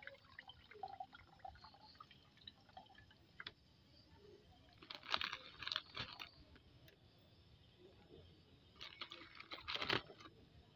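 Cooking fire crackling: scattered sharp pops and clicks, with two louder flurries of crackling about five and nine seconds in.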